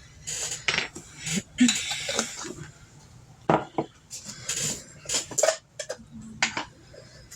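A spoon clinking and scraping against a jar and container, a string of irregular short clinks and scrapes, as minced garlic is scooped out and added to the marinade.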